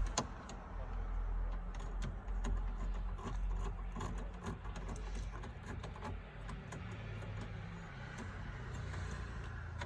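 Scattered small clicks and light rattles of plastic dashboard trim pieces and screws being handled and set down, over a steady low hum.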